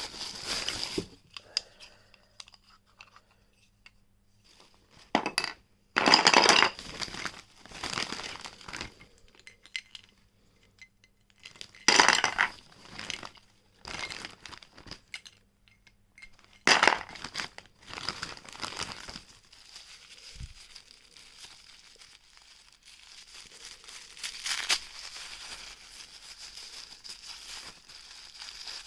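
Plastic packaging crinkling and tearing, with small wooden and plastic toy tool pieces clinking and knocking together. The sounds come in several separate bursts with quiet gaps between them.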